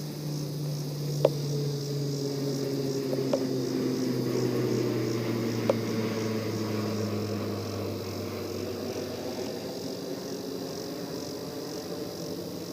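Insects chirping in a steady pulsing rhythm, with a distant engine droning over them, its pitch slowly falling as it passes and fading out about eight seconds in. Three sharp clicks stand out about a second, three seconds and six seconds in.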